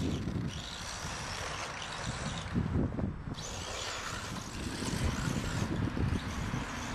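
Thunder Tiger Sparrowhawk XB brushless electric RC buggy driving across a grassy, leaf-covered lawn, with wind rumbling on the microphone.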